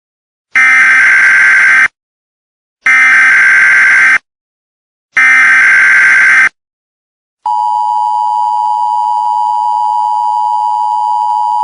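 Emergency Alert System tones: three loud digital data bursts of the SAME header, each about a second long with short gaps between them. About seven seconds in, the steady two-tone EAS attention signal begins and holds.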